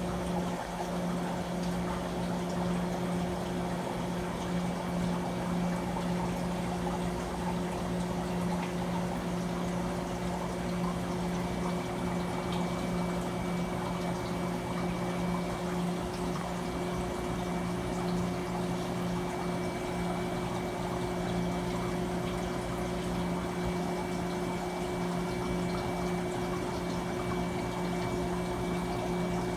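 Manitowoc ice machine running: a steady electrical hum from its motors, with water circulating and splashing.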